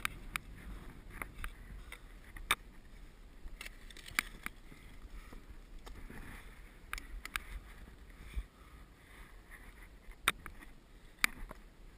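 Ice axe and crampons knocking and scraping on snowy granite during a climb: about a dozen sharp, irregular clicks over a low rustle.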